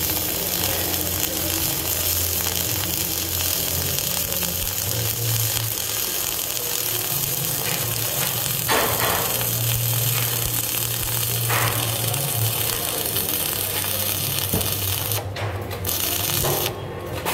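Self-shielded flux-core welding arc on 5/64-inch Lincoln NR-305 wire crackling and sputtering steadily as a bead is run on a steel column splice, with a low hum underneath. The arc cuts out briefly twice near the end.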